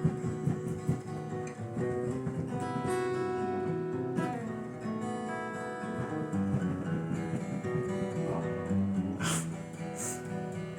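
Acoustic guitar being played, chords ringing and changing every second or so. Two short noises sound near the end.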